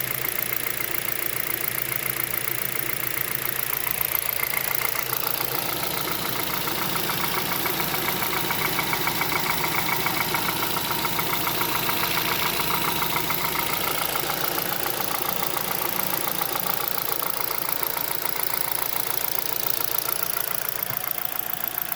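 Hyundai Solaris's 1.6-litre G4FC four-cylinder engine idling at about 900 rpm, half warmed up, with a steady rapid knock that comes in as the engine warms and is now distinct, coming from the top of the engine. The owner suspects piston slap as the hot piston crown expands, or valve clearances closing up with heat; he has not yet measured the valve clearances.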